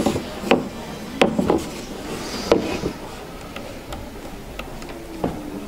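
About six irregular sharp taps and knocks from working on a linen canvas stretched taut on a wooden stretcher, most of them in the first three seconds and one more near the end.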